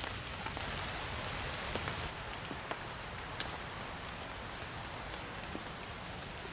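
Salt pork sizzling in a pan over a campfire: a steady frying hiss with scattered sharp pops.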